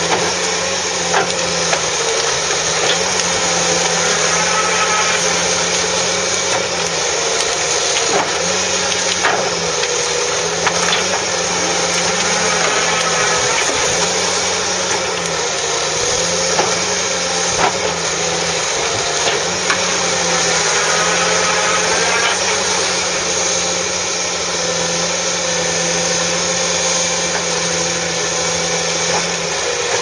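Fiberpac 370B brash baler working on a Ponsse forwarder: the diesel engine and hydraulics run steadily under load with a wavering whine, while brash cracks and snaps sharply now and then as it is compressed into bundles.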